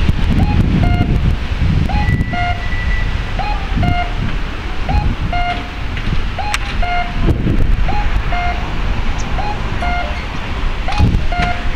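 Rikuun No. 21 acoustic pedestrian-signal speaker sounding its electronic "cuckoo" call over and over, a short rising note then a longer held note about every second and a half. It signals to blind pedestrians that the walk light is green. Low traffic rumble runs beneath it.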